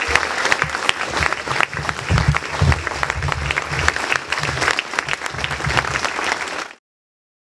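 A large audience applauding with dense, continuous clapping, which cuts off suddenly near the end.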